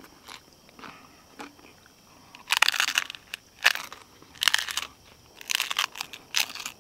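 Crunching and chewing as bites are taken from a hard taco shell filled with crispy fried fish. It is quiet at first, then comes a run of about half a dozen loud, short crunches in the second half.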